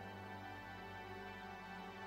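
Soft background music: steady, held instrumental tones.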